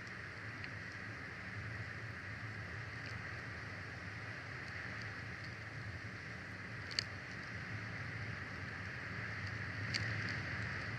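Steady outdoor background hiss and low hum picked up by a nest-cam microphone, with two sharp clicks, one about seven seconds in and one near the end.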